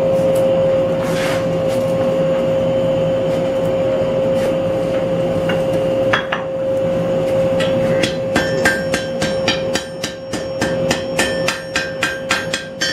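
Hand hammer striking hot steel on an anvil: a quick run of ringing blows, about three a second, starting about eight seconds in, tacking a nick-and-fold forge weld together. A steady hum runs underneath.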